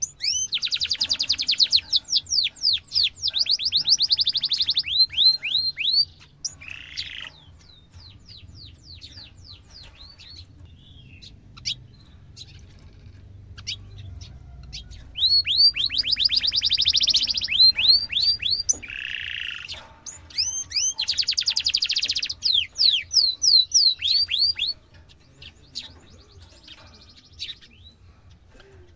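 Domestic canary singing: long rolling trills of quick, downward-sweeping chirps. The song comes in loud stretches at the start and again past the middle, with quieter scattered notes in between and near the end.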